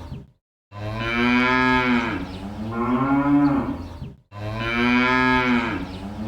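Cattle mooing: long, drawn-out moos one after another, the pitch rising and falling within each call. There are short silences between the groups of calls.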